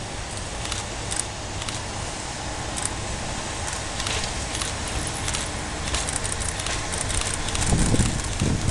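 Locomotive 501 running past on the rails: a steady rumble with scattered sharp clicks, and two heavier low thumps near the end.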